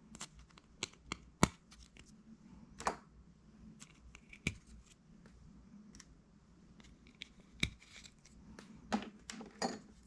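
Scattered light clicks and scrapes of a plastic laptop drive bracket being handled while its small mounting screws are turned out by hand.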